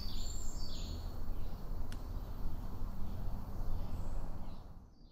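Outdoor jungle ambience: birds and insects calling high and faint over a steady low rumbling noise, with a single faint click about two seconds in; the rumble falls away shortly before the end.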